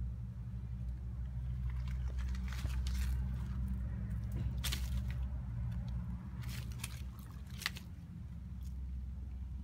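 Short rustles and crackles of dry plant leaves and pebbles being disturbed, coming in several small clusters through the middle, over a steady low hum.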